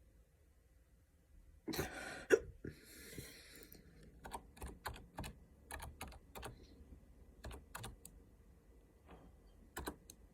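A computer keyboard being typed on, its keys clicking in quick runs. About two seconds in there is one short, sharp hiccup, followed by a breathy outbreath.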